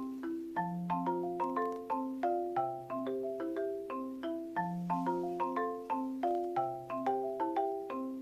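Background music: a light, bouncy tune of struck mallet-percussion notes in a steady rhythm, over a low note held about every two seconds.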